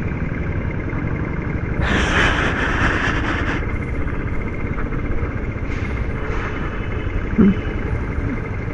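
Motorcycle riding in city traffic: a steady engine and road rumble, with a louder rushing hiss about two seconds in that lasts about a second and a half.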